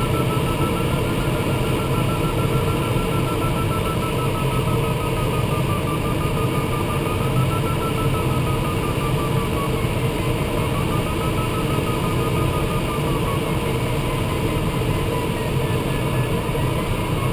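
Steady rush of air in a DG300 glider's cockpit, with the audio variometer beeping rapidly throughout, its pitch drifting down and back up.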